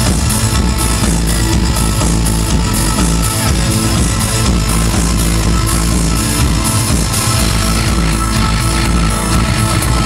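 Live industrial music played loud through a concert sound system: a dense electronic track with a steady beat.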